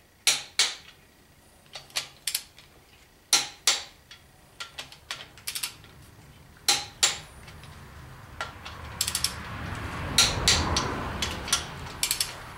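Ratcheting click-type torque wrench tightening the main bearing cap bolts on a Chevy 350 small-block, with sharp ratchet clicks in pairs and short runs between pauses. A longer rushing noise swells and fades around ten seconds in.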